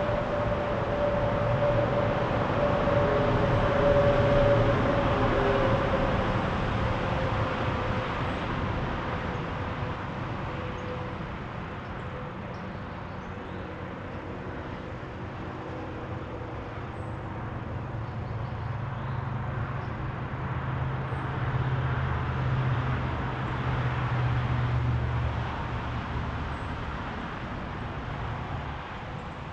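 Road traffic: vehicles passing by with a steady rushing noise. One swells and fades over the first several seconds with a slightly falling whine, and another swells about twenty seconds in with a low engine hum.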